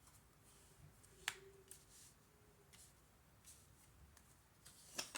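Near silence in a small room, broken by a few faint, sharp clicks: one about a second in and another just before the end.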